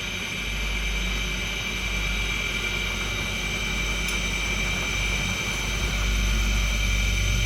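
Angle grinder running with a steady high whine over a low hum.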